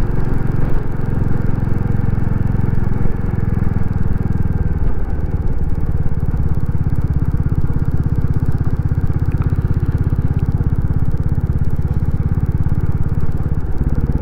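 Royal Enfield Classic 350's single-cylinder engine running steadily under way, heard from the bike with road and wind noise. The engine note dips and changes briefly about five seconds in, then runs on evenly.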